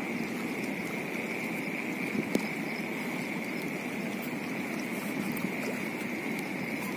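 Muddy floodwater rushing along a stone-lined river channel: a steady noisy wash, with a steady high-pitched drone over it and a single click a little over two seconds in.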